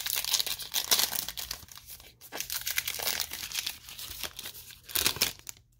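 A Diamond Kings trading card pack's wrapper being torn open and crinkled: a busy run of crackles and rustles, with one louder burst about five seconds in, that stops just before the end.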